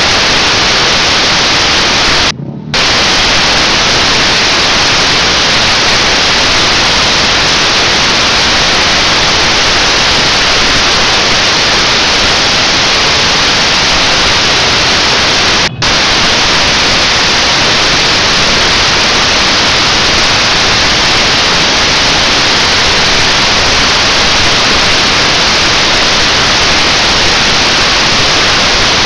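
Loud, steady static-like hiss with no separate bangs or crackles in it. It cuts out completely for a moment about two and a half seconds in, and again for an instant about halfway through.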